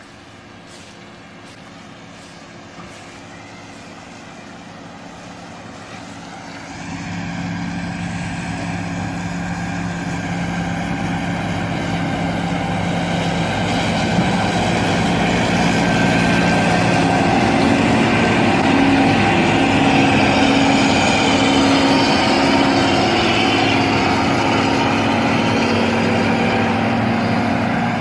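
John Deere self-propelled windrower's diesel engine and mowing header running as it cuts grass. The sound grows louder as the machine approaches, with a jump about a quarter of the way in, and stays loud and steady through the second half as it passes close by.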